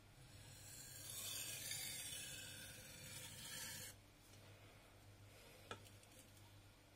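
Steel nakiri blade drawn in sharpening strokes across a wet whetstone: a steady scraping for about three seconds that stops abruptly as the knife is lifted off. A single light click follows a couple of seconds later.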